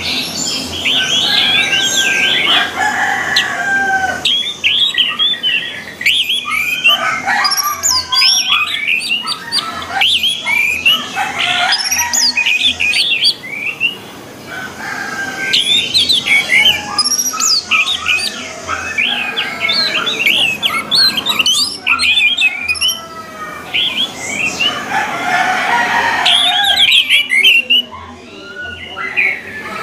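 Several orange-headed thrushes singing at once: fast, varied whistled and chattering phrases that overlap in dense bursts, broken by short lulls.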